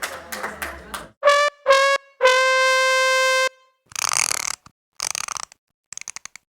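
Brass "sad trombone" fail sting: three notes stepping down in pitch, the last held for over a second. Short noisy bursts from other effects come after it.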